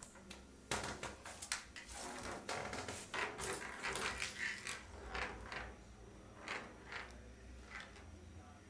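A cat batting a ping-pong ball around an empty bathtub: a quick run of light taps and rattling as the ball and the cat's paws hit the tub. It is busiest in the first five seconds, with a few single taps near the end.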